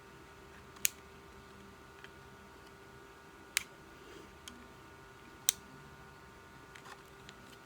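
Sharp clicks from a cosmetic cushion compact being handled, three loud ones about two seconds apart with a few fainter ticks between, over a steady faint hum.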